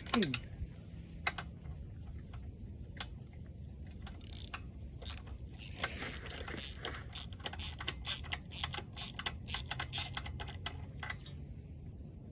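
Socket ratchet on two extensions clicking as it is worked: scattered clicks at first, then a dense run of quick clicks from about six to eleven seconds in.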